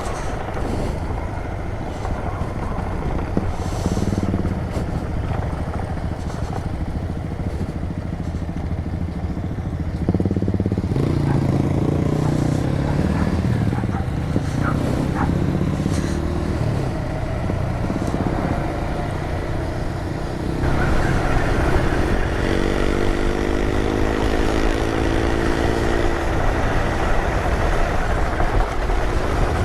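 Motorcycle engine running on the move, its sound shifting abruptly twice, with the pitch climbing under acceleration a little past the middle.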